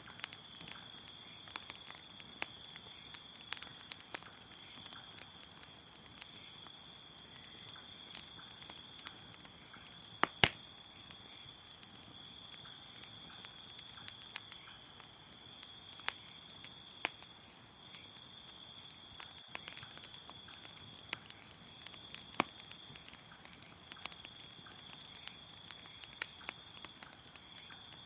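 Crickets chirping in a steady high trill, with a fire crackling in scattered sharp pops; the loudest pops come as a pair about ten seconds in.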